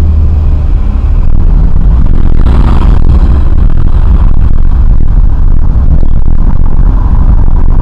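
Car running, heard from inside the cabin: a loud, steady low rumble.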